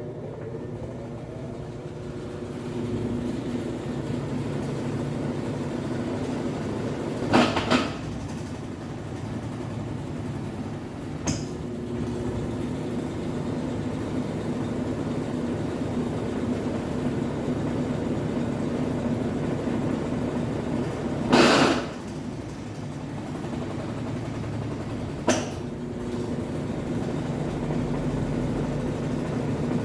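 Brastemp 11 kg top-load washing machine running its drain and spin stage in self-test: a steady motor and basket hum, broken three times by loud knocks and once by a small click. This is the noise in the spin that the machine was brought in for.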